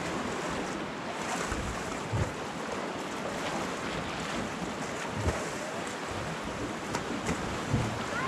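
Steady wash of sea water lapping against shoreline rocks, with wind buffeting the microphone.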